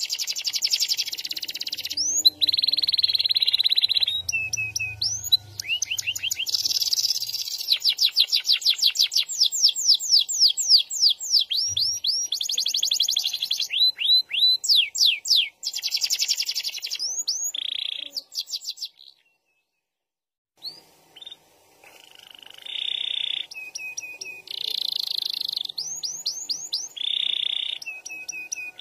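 Domestic canary singing a long, fast song of rolling trills, rapidly repeated sweeping notes and buzzy held phrases. It breaks off for about two seconds a little past the middle, then resumes.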